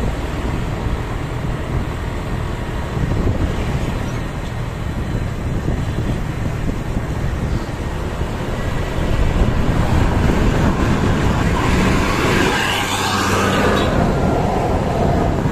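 Roadside traffic noise with wind on the microphone. It grows louder about nine seconds in as a vehicle approaches and passes close near the end. No horn tune sounds.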